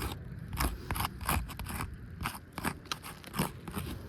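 Chalk scraping in short, irregular strokes across the gritty granule surface of asphalt shingles as letters are written on them.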